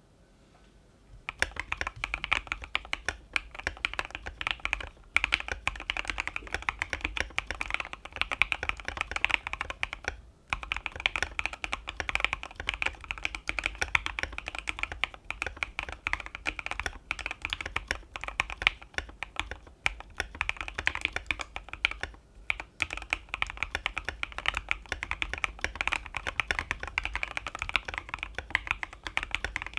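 Fast, continuous typing on a Keychron Q3 aluminium mechanical keyboard with lubed and filmed Banana Split linear switches and Drop MT3 keycaps, its case modded with tape, switch pads and polyfill. It is a dense run of key clacks that starts about a second in and breaks off briefly a few times.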